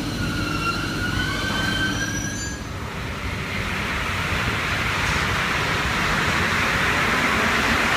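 Paris Métro train running: a rising whine in the first couple of seconds, then from about three seconds in a steady rushing rumble of the train rolling along the platform.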